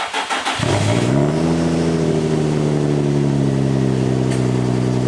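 Nissan 350Z's V6, breathing through a Tomei dual exhaust, starts: brief irregular noise, then the engine catches just under a second in, rises in pitch and settles into a steady idle.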